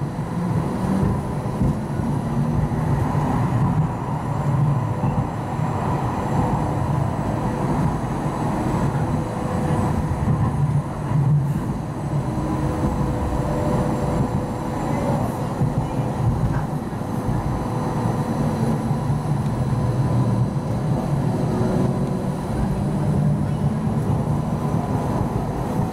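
Hong Kong Light Rail Phase I car running along the track, heard from on board: a steady low rumble of wheels and running gear with an even electrical hum.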